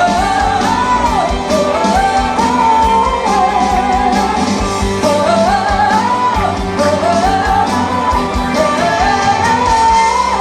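Live Christian pop band playing an instrumental passage between sung sections: a melodic lead line rising and falling in repeated phrases over a steady drum beat.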